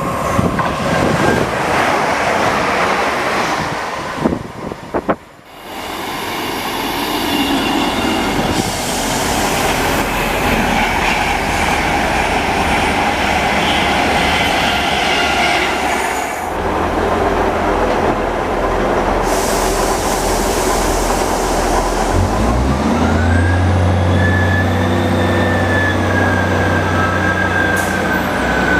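Train moving through the station: wheels and rail noise with some squeal, then a steady low diesel engine hum and a rising high whine in the last few seconds.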